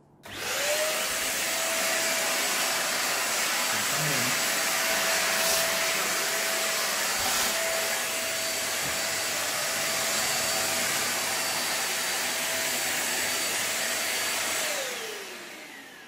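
Deerma DX700 stick vacuum cleaner switched on, its motor spinning up within a second to a steady whine over a loud rush of air. About fifteen seconds in it is switched off, and the whine falls as the motor winds down.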